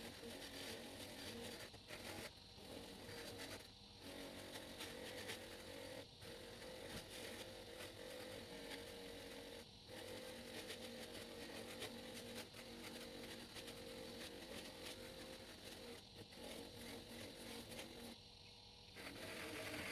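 Bench grinder with a Scotch-Brite abrasive wheel running faintly and steadily, buffing rust off a steel lathe chuck body. The low hum cuts out briefly several times.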